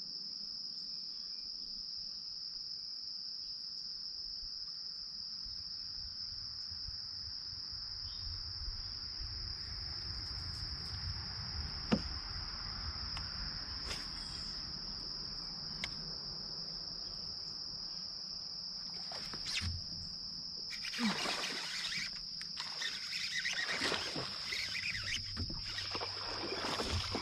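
Insects keep up a steady, even, high-pitched drone. In the last several seconds a run of splashy, rustling noise bursts comes as a bass takes the topwater frog and the angler sets the hook.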